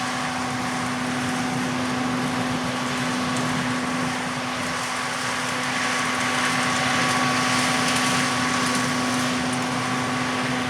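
Steady drone of running harvest machinery with a constant engine hum. A rushing hiss swells slightly about six seconds in and eases off near the end.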